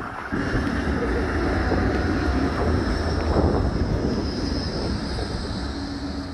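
Bombardier Flexity 2 tram running past at close range: a steady rumble of wheels on rails, with a faint high whine over it.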